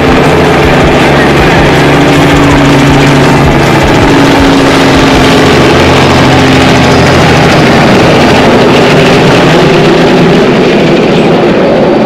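Light helicopter flying low overhead, a loud steady engine and rotor drone whose pitch drifts slightly as it moves.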